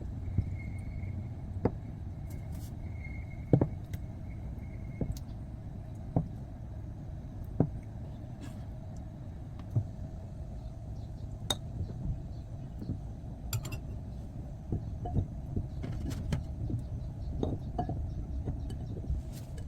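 Scattered clinks and knocks of dishes and utensils, a single one every second or two at first and more frequent in the second half, over a steady low hum.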